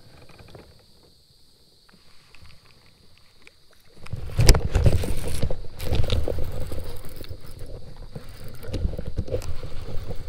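Handling noise from a fishing lure and a baitcasting reel worked by hands right at the microphone. A few light clicks come first; about four seconds in, loud rubbing and fumbling starts, with sharp clicks and knocks from the gear.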